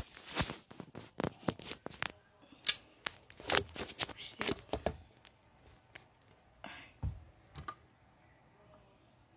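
Handling noise: a run of short clicks, taps and rustles, dense over the first half and sparse and faint after, with a sharp click at the very start.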